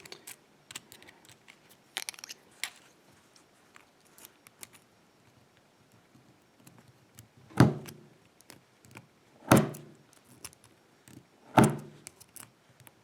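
Small metal clicks and scrapes of tools working on a picked ISEO lock cylinder, prying at its retaining clip, then four heavier knocks about two seconds apart from about halfway through.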